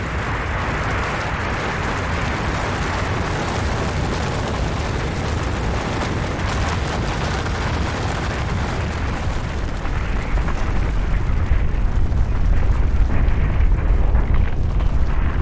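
Avalanche of snow and rock sliding down a mountainside: a continuous heavy rumble with a hissing rush, its deep rumble growing stronger about ten seconds in.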